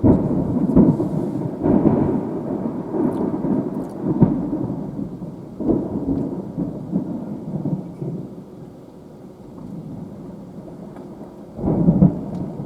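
Thunder from a supercell rumbling in uneven surges, fading for a few seconds in the middle and swelling again near the end, with rain in the background.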